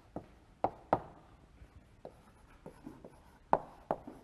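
Chalk writing on a blackboard: irregular sharp taps as strokes start, with faint scratching between them; the strongest taps come about a second in and near three and a half seconds.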